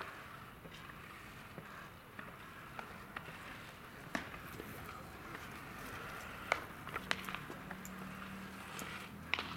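Faint open-air ambience of a baseball practice field, with scattered sharp clicks and pops during a game of catch; the loudest comes about two-thirds of the way in and a couple more come near the end.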